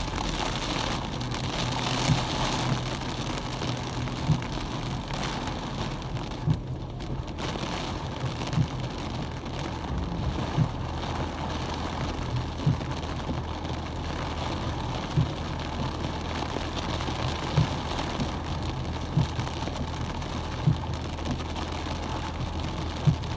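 Heavy rain drumming on a car's roof and windshield, heard from inside the cabin over a car engine's low steady hum. Soft short thumps come about every two seconds.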